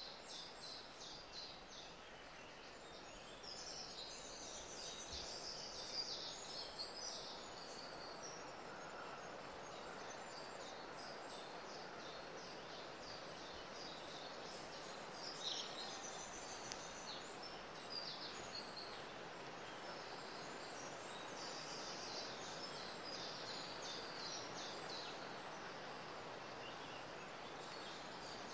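Faint woodland ambience: small birds chirping in quick, high-pitched phrases that come and go, over a steady background hiss.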